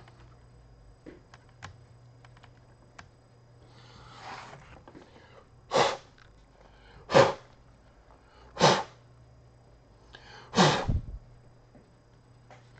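Short puffs of air blowing dust out of a laptop's clogged cooling fan: a faint puff about four seconds in, then four sharp bursts of air about a second and a half apart.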